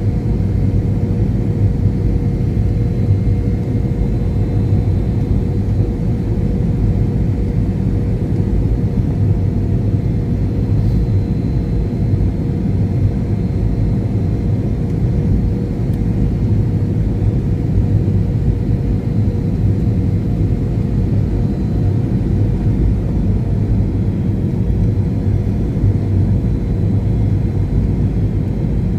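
Airplane during a landing: a steady low rumble with a constant hum, unchanging in level.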